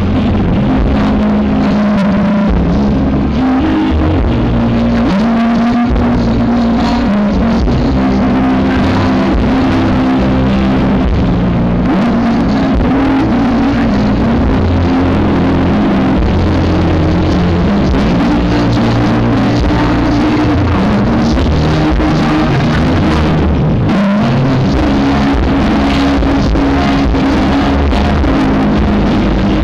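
Live rock band with electric guitar playing through a large outdoor PA. The recording is heavily distorted and muddy, with loud bass, because the camera's microphone was overloaded and faulty.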